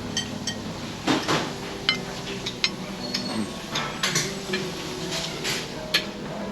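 Cutlery clinking and tapping against a plate a dozen or so times at irregular intervals, over a steady low hum.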